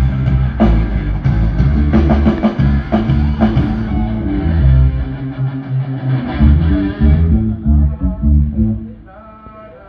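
Live band at a sound check playing loudly: a heavy bass guitar line with guitar and drum hits, breaking off about nine seconds in.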